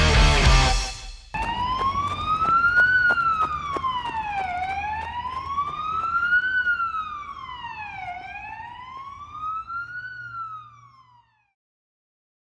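Electric guitar and drums stop about a second in. A siren then wails, rising and falling slowly three times, and fades out.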